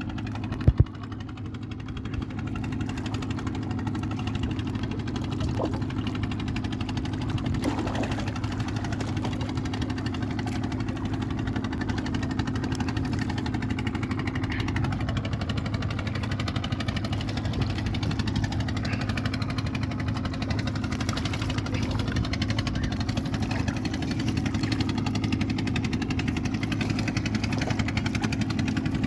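A small engine running steadily at an even idle, with a couple of sharp knocks just under a second in.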